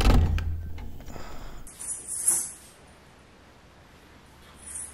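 Chilanka ankle bells, worn on one leg, jingling in short shakes as the wearer steps slowly, once about two seconds in and again near the end. Before that, a low rumble of handling noise on the phone's microphone fades out.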